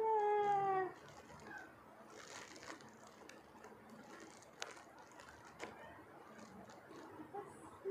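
A woman's drawn-out vocal exclamation, falling slightly in pitch, in the first second. Then quiet rustling of a striped shirt being handled, with a few light clicks.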